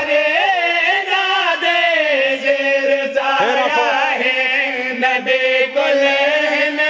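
A man chanting a line of devotional Punjabi verse in long, drawn-out notes, his pitch wavering and sliding between held tones, in the sung style of a zakir's majlis recitation.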